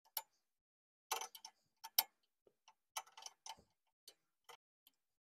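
Faint, irregular metal clicks and clinks of a wrench working on the brake line's flare nut at a drum-brake wheel cylinder, about a dozen scattered taps with the sharpest one about two seconds in.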